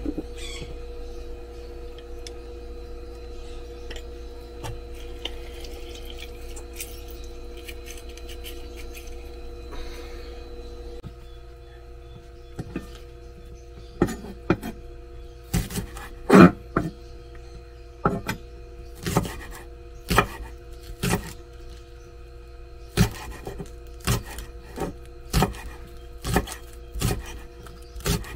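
Chef's knife chopping green onions on a wooden cutting board: sharp knocks of the blade on the wood, one or two a second, starting about twelve seconds in. Before that only a steady background hum.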